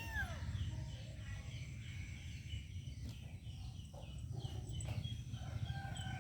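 Small birds chirping in quick short repeated notes over a steady low rumble, with one longer rising-and-falling call at the very start.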